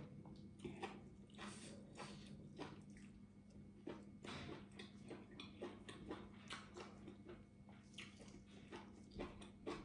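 Close-up eating sounds: faint wet smacks and clicks of chewing and handling food with the fingers, at an irregular pace, over a steady low hum.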